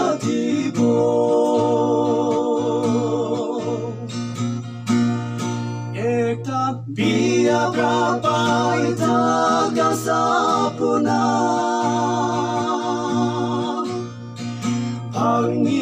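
A song: a singer holds long notes with a wavering vibrato over steady instrumental accompaniment, with a brief break in the voice about seven seconds in.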